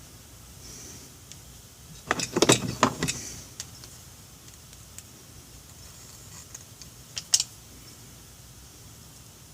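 A burst of metallic clattering and rattling about two seconds in, lasting about a second, from small metal parts or tools being handled on a workbench. A few lone clicks follow, then two sharp clicks close together near the end.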